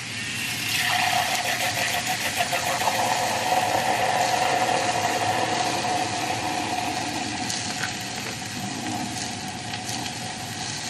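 Handheld battery milk frother with a double whisk head whirring in a glass mug of milk: a steady small-motor hum with the milk churning into foam. It starts about half a second in and eases slightly toward the end.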